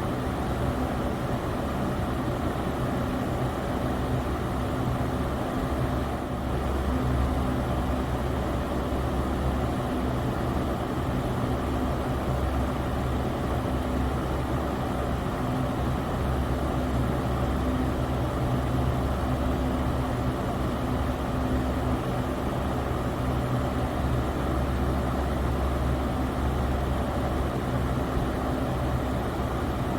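Electric fan running steadily: a constant rush of moving air over a low motor hum.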